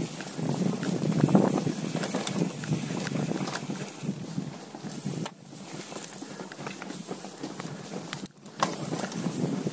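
Mountain bike riding over a dirt singletrack: tyre noise on the trail with constant small rattles and knocks from the bike over bumps. The noise drops briefly twice, about five and eight seconds in.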